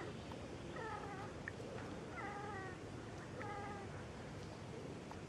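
Street cats meowing around a mating pair: three short calls, each dropping slightly in pitch, about a second and a quarter apart.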